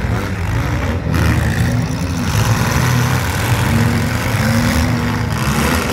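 Several demolition derby compact cars' engines running and revving together, loud and continuous, with the pitch rising and falling as the drivers rev.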